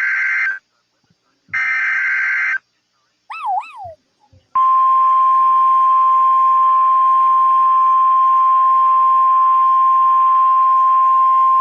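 Emergency Alert System SAME header data bursts: harsh, buzzy electronic screeches about a second long, one ending half a second in and another about a second and a half in. After a brief wavering cry, the National Weather Service's steady single-tone warning alarm starts about four and a half seconds in and holds unbroken.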